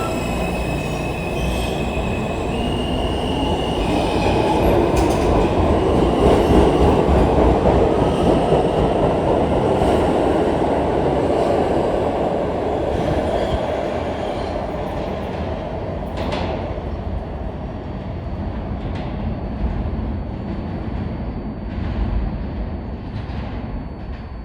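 R160 New York subway train running on steel rails: wheel and rail noise builds to its loudest several seconds in and then fades. The motors give a stepped whine in the first few seconds, and a few sharp rail clacks come near the end.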